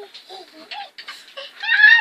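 A young child's high-pitched squeals and vocalising, a string of short rising-and-falling calls with the loudest one near the end.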